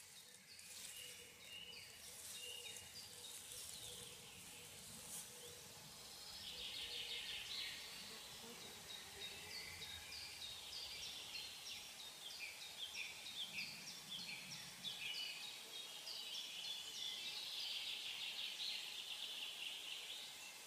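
Wild birds singing in a bog and forest: short, repeated, high-pitched phrases from several birds that thicken into a busy chorus about six seconds in, over faint background noise.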